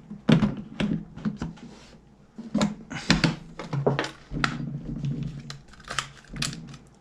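Irregular plastic and metal clicks, knocks and thunks of a Glock pistol and its handle being fitted into a polymer (ballistic nylon) carbine conversion chassis, with more than a dozen sharp clicks spread over a few seconds.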